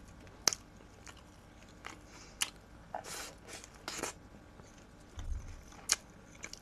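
Close-up mouth sounds of a person biting and chewing a slice of bread topped with cucumber caviar: scattered wet clicks and a couple of short crunches, about three and four seconds in.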